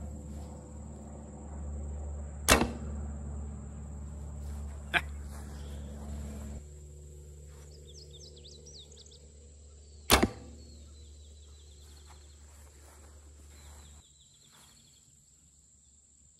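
Wooden recurve bow shot twice, released with a trigger release aid on a string D-loop: a sharp string thwack about two and a half seconds in and another about ten seconds in, with a smaller click between them.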